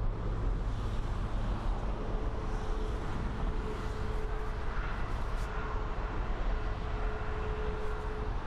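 Steady jet engine noise from airliners at the airport, with a thin steady whine joining about two seconds in.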